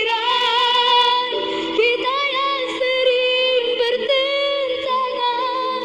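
Background music: a song with a high-pitched singing voice holding long, wavering notes.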